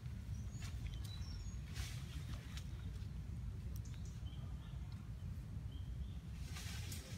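Outdoor ambience: a steady low rumble with faint, short high-pitched chirping calls scattered through it and a couple of brief rustles, about two seconds in and near the end.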